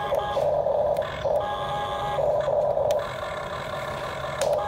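Huina RC toy excavator's electric gear motors whirring in four bursts as the arm, boom and bucket move, with a few short clicks as they start and stop.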